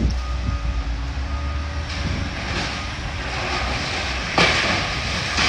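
Heavy demolition machinery's diesel engine running with a steady low rumble, and a sharp knock about four seconds in.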